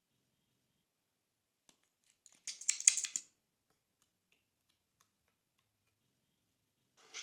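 Slime being handled by hand: a short burst of crisp crackling and clicking about two and a half seconds in, then a brief one near the end, with quiet in between.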